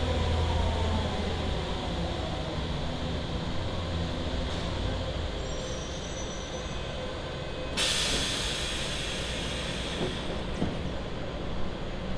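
Subway train in a station: a low rumble with faint falling tones as it slows, a brief high wheel squeal about six seconds in, then a loud hiss that starts suddenly about two seconds later and carries on, with a few light knocks near the end.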